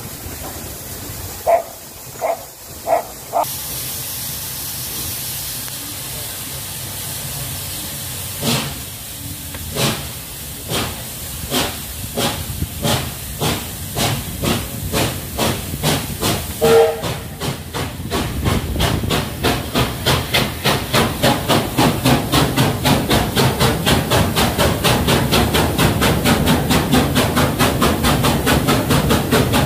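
USATC S160 2-8-0 steam locomotive standing with steam hissing, after a few short whistle toots, then starting away: slow, widely spaced exhaust beats that quicken to about two or three a second. A short whistle sounds partway through, and the exhaust and running noise grow louder as the train enters a tunnel, heard from a carriage window.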